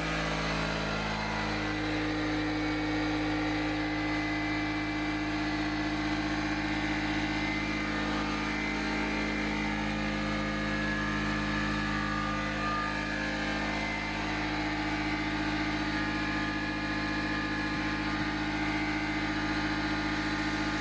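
Air compressor running steadily while air hisses through the hose chuck into a drag slick being inflated and seated on its wheel.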